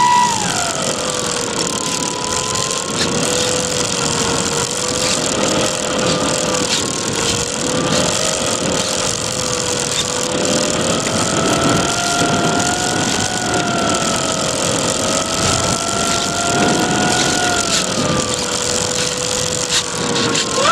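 Brushless electric motor and propeller of an E-flite Apprentice S 15e RC plane in flight, heard from on board over steady wind rush. The whine drops sharply in pitch about a second in as the throttle comes back, wavers and rises a little through the middle, eases down again near the end, then climbs steeply right at the very end.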